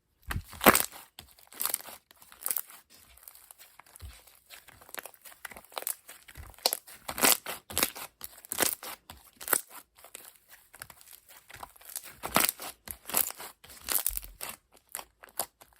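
Green slime being squeezed and pressed by hand, giving irregular crackling and popping sounds.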